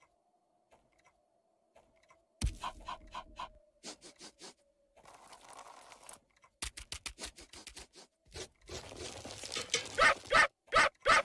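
Cartoon sound effects of a small dog: a thump about two seconds in, then a run of quick yaps, and near the end a faster series of loud, sharp yelps.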